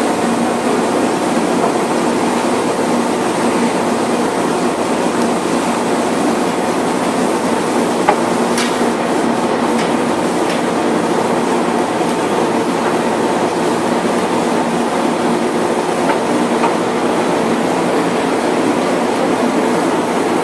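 Steady loud mechanical noise of a trawler's deck machinery hauling a full codend of fish aboard, with a few sharp metallic clanks, one about 8 seconds in and another near 16 seconds.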